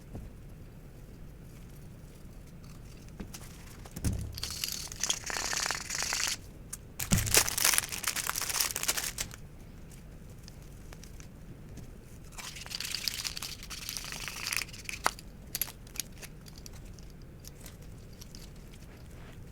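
CZ Shadow 2 pistol parts being cleaned: three rough, scratchy bursts of about two seconds each. A low knock opens each of the first two bursts, and a sharp click comes shortly after the third.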